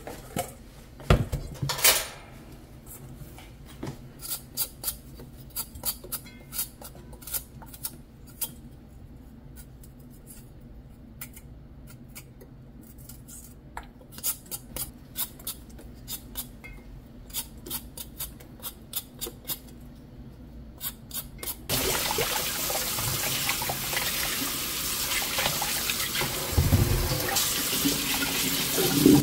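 Scattered light clicks and clinks of kitchen utensils and dishes. About two-thirds of the way through, a tap is turned on and water runs steadily into a sink.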